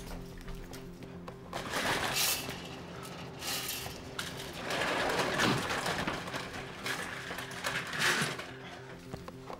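Film score music with a low, evenly pulsing drone, and a few short noises over it about two, three and a half, five and eight seconds in.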